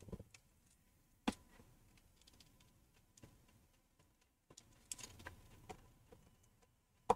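Small clicks and ticks of a precision screwdriver turning a tiny tri-point screw in an iPhone X's earpiece and proximity-sensor bracket: a sharp click about a second in, a run of faint ticks around five seconds, and another sharp click near the end.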